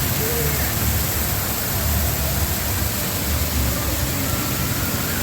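Indoor atrium waterfall: water falling steadily, a constant rushing noise with a low rumble underneath.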